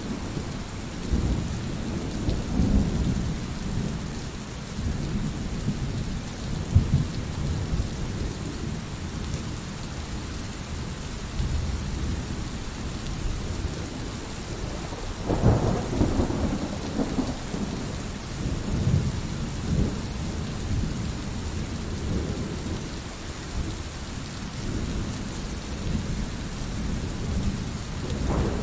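Thunderstorm: steady rain with thunder rumbling low and continuously, swelling into louder peals several times, the sharpest about a quarter of the way in and about halfway through.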